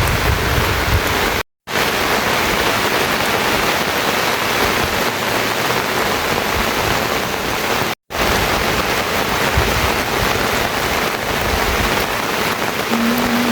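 Steady heavy rain, a dense even hiss, cut by two very brief silences about one and a half and eight seconds in. A short low tone that bends once sounds over it near the end.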